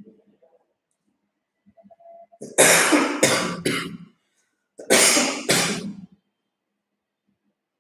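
A person coughing loudly: a fit of three coughs, then after a short pause two more.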